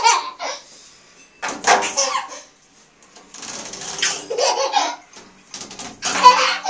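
Toddler laughing in bursts, three times, while rubbing and knocking his juice bottle along the fins of a panel radiator, with short clattering rattles.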